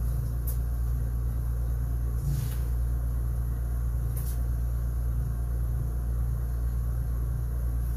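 Steady low rumble with a few faint, brief swishes over it.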